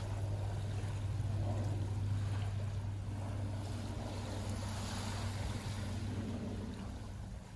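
Boat engine running with a steady low drone over the wash of surf on the shore; the drone weakens near the end.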